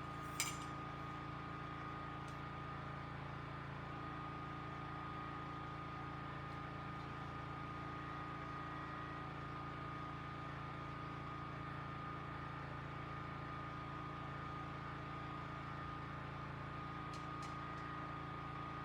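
Steady hum of a generator running, even and unchanging, with a single short click about half a second in.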